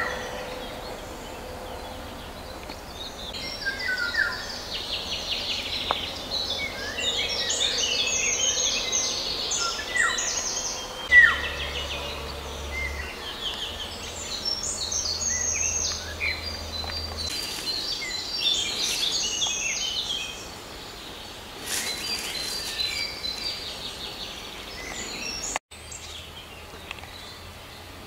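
Several songbirds singing in leafy woodland, a busy chorus of high chirps, trills and whistled phrases over a faint steady background hiss.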